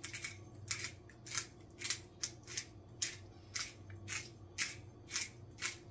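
Pepper mill grinding black pepper: a run of short, crisp, crunchy strokes at about two a second, one for each twist of the grinder, over a faint steady low hum.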